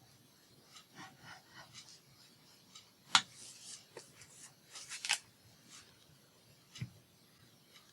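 Paper being handled and rubbed on a craft table: scattered rustles and light clicks, with a sharp click about three seconds in, a few more around five seconds, and a soft knock near the end.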